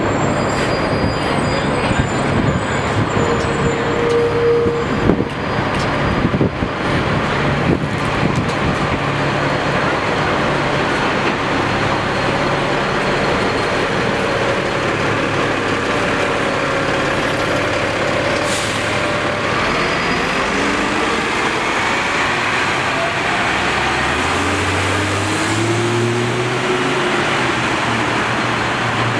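Street traffic dominated by diesel buses running. There is a short hiss of air partway through, and near the end a bus engine's note rises in steps as it pulls away through its gears.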